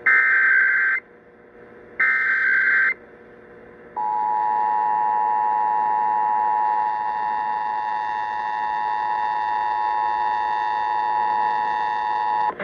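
Emergency Alert System required monthly test signal over a radio broadcast: two one-second bursts of SAME header data tones, a second apart, then the steady two-tone EAS attention signal (853 and 960 Hz) starting about four seconds in and holding for about eight and a half seconds before it cuts off.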